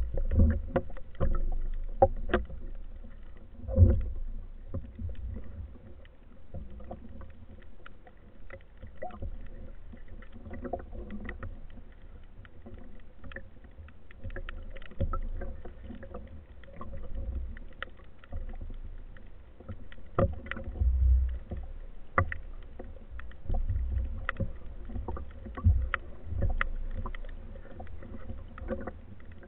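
Underwater noise picked up by a speargun-mounted action camera: a low rumble of water movement that swells and fades, with scattered clicks and a few louder knocks.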